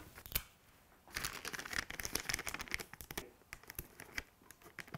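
Sticky tape pulled off the roll of a desk tape dispenser and torn off, then pressed and smoothed onto a gift in wrapping paper, which crinkles. A click near the start, about two seconds of crackly tearing from about a second in, then scattered crinkles.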